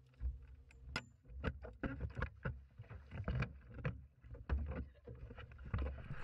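Irregular knocks, clatters and thumps close to the microphone, over a low rumble, as someone moves about and handles gear on a bass boat's deck.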